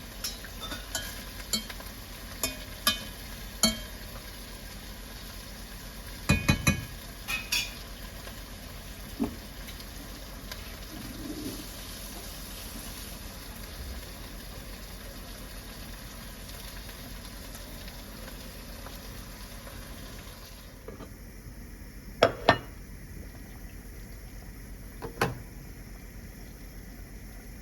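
Metal utensils clinking against cookware or dishes in a series of sharp, ringing clicks, most of them in the first third, with a few more near the end. A steady hiss runs underneath.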